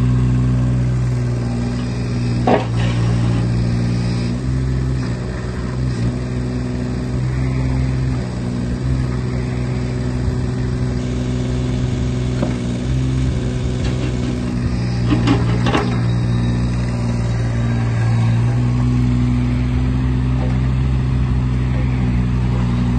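Kubota KX018-4 mini excavator's small three-cylinder diesel engine running steadily under hydraulic load as the machine slews and tracks, its note shifting slightly a few times. Sharp clanks of metal about two and a half seconds in and again around fifteen seconds.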